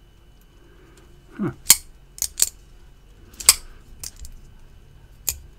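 Benchmade Nakamura folding knife being worked open and shut by hand: about six sharp metallic clicks as the blade snaps into place.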